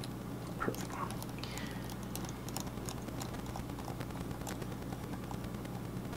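Small, irregular clicks and ticks of an iFixit precision screwdriver and pentalobe bit turning a screw into the bottom of an iPhone, over a steady low hum.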